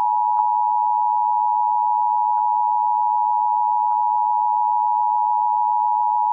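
Emergency Alert System attention signal: the two-tone alert of 853 Hz and 960 Hz sounding together, held steady and loud as broadcast over the radio, just before the test message.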